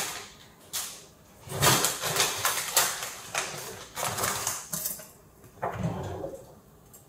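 Irregular rustling and knocking as a fabric tote bag is handled and items are taken from the fridge and packed into it, in about half a dozen short bursts with quiet gaps between.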